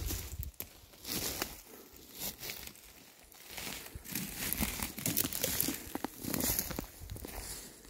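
Irregular crinkling and rustling with short scrapes and clicks, like handling noise, and a low bump right at the start.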